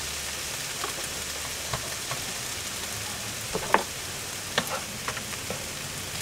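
Vegetables sizzling steadily in a frying pan as they are stir-fried with a wooden spatula, with a few sharp knocks from the stirring.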